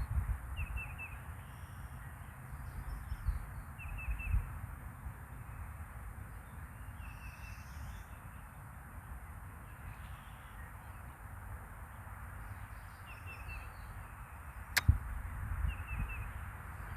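A bird calling in short bursts of quick notes every few seconds, over a low, gusty rumble of wind on the microphone. One sharp click about 15 seconds in.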